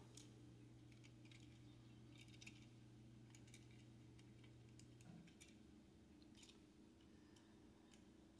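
Near silence: faint, scattered small clicks and ticks of fingers handling a die-cast toy truck and its tiny wheels. A low steady hum underneath stops about five seconds in.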